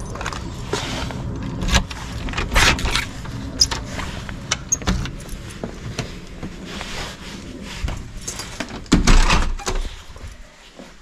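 Keys jangling and the clicks of a front door's lock and lever handle as it is unlocked and opened, followed by footsteps and rustling handling noise, with a loud thump about nine seconds in.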